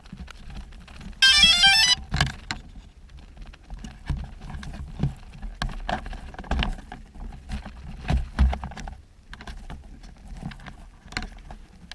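Short electronic startup tune of quickly stepping beeps, lasting under a second, typical of a quadcopter drone powering up; scattered clicks and knocks of the drone being handled follow.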